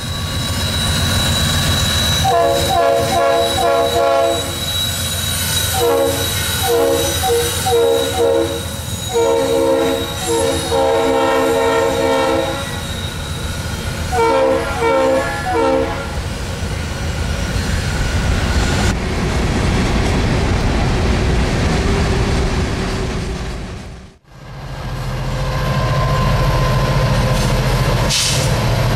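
Norfolk Southern freight locomotive passing close, engine running under a steady high wheel squeal, sounding its multi-tone air horn in four groups of short blasts. About 24 seconds in the sound cuts, and a different set of diesel locomotives follows with a deep steady engine drone.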